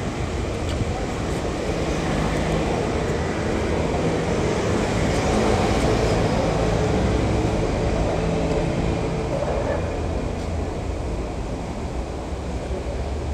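Steady low rumble of a moving vehicle, with a few faint steady tones in it.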